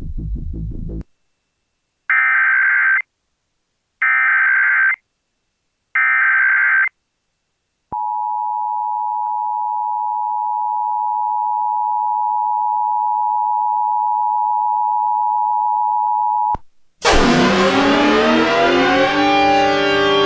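Emergency Alert System tones: three one-second bursts of SAME digital header data, a second apart, followed by the two-tone EAS attention signal held steady for about eight and a half seconds. The attention signal cuts off, and a loud siren sound rising in pitch follows.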